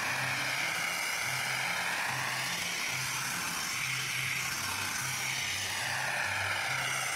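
Robotic crawler's high-pressure blasting jet stripping paint and rust from a steel tank: a loud, steady hiss with a whooshing that sweeps up and down in pitch as the nozzle moves across the surface.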